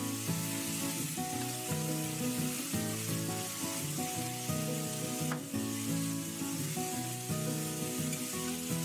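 Food sizzling in a hot frying pan, a steady crackling hiss, over background music of sustained notes. There is one sharp knock about five seconds in.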